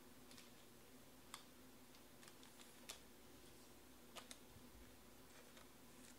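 Near silence: room tone with a faint steady hum and a few faint, irregular clicks.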